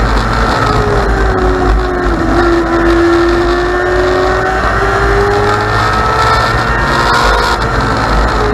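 Onboard sound of a dwarf race car's engine running hard at speed around an oval. The engine note dips briefly about two seconds in, then climbs steadily as it pulls through the turn.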